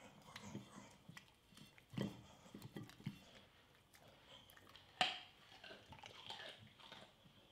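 An American Staffordshire terrier crunching and chewing a raw carrot, with a few crisp bites about two to three seconds in and a single sharp knock about five seconds in.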